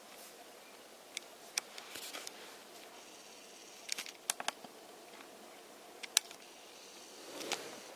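Quiet handling noise: a wool army blanket handled at close range, with faint rustling and scattered small sharp clicks, the loudest about six seconds in.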